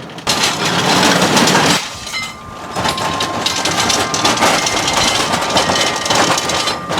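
Metal tool cart on small all-swivel casters being pushed over a rough driveway, its wheels and loaded tools clattering and rattling continuously, with a brief letup about two seconds in. The small casters bounce over the rough surface, which is why the cart doesn't roll well.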